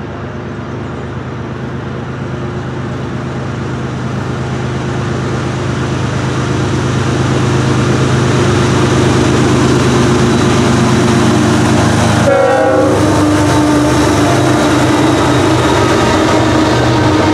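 GE ES44AC diesel-electric locomotives hauling a long double-stack intermodal train approach and pass, with a steady engine rumble that grows louder over the first several seconds. The horn sounds, and its pitch drops sharply as the lead unit goes by about twelve seconds in.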